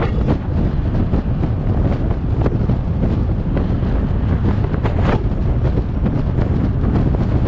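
Wind buffeting the microphone of a car-mounted GoPro action camera over the steady low rumble of the car driving on the road, with scattered short crackles.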